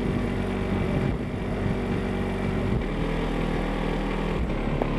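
An engine running steadily, its pitch shifting down slightly about three seconds in.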